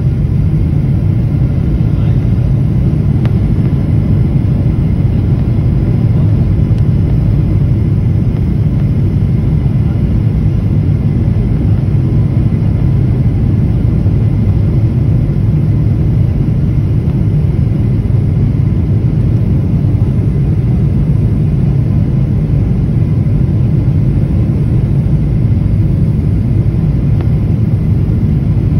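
Steady low rumble of an airliner's jet engines and rushing air, heard inside the cabin during the descent to land.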